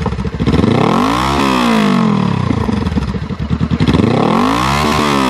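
2018 Honda CBR500R's parallel-twin engine revved hard twice through a Shorty GP slip-on exhaust, each rev rising and falling in pitch. Between the revs, as the engine drops back, there is a crackling burble. It is loud and deep.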